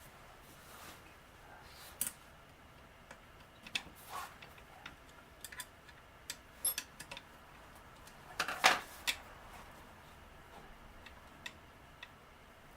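Scattered light clicks and taps of small metal parts and tools being handled on a workbench, with the loudest cluster about two-thirds of the way through.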